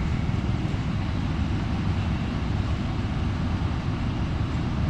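Steady low rumble of a running vehicle, even throughout with no distinct clicks or knocks.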